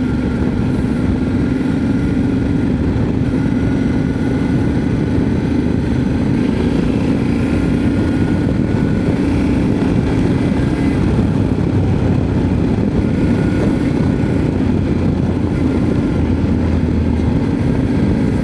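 Yamaha Ténéré 700's parallel-twin engine running steadily under way, with a constant low drone and rumble from the ride.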